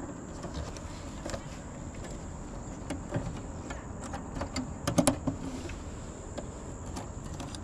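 Crickets chirring steadily, with scattered light clicks and rattles from fiber-optic connectors and patch cords being handled in a plastic cable cabinet, the loudest cluster about five seconds in.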